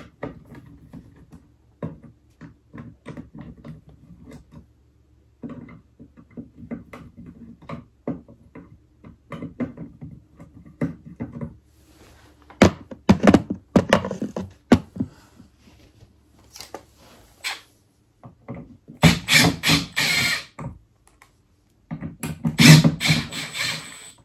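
Hands working on the wiring and parts inside a ceiling cassette air conditioner: scattered small clicks and knocks, with three louder clattering bursts from about halfway to near the end.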